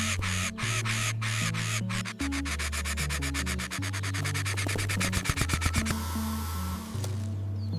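Background music: a stepping bass line under a fast, even, scratchy ticking rhythm. The ticking stops about six seconds in, with a few louder knocks just before it ends.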